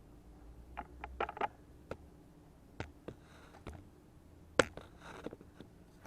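Scattered metal clicks, taps and short scrapes of tools and engine parts being handled, with the sharpest click about four and a half seconds in.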